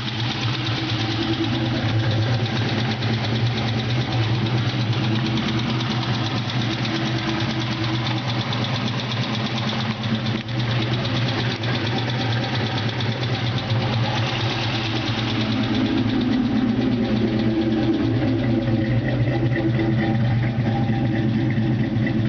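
Ford Mustang GT's 4.6-litre V8 idling steadily with a fast, light ticking from the engine, getting a little louder in the second half.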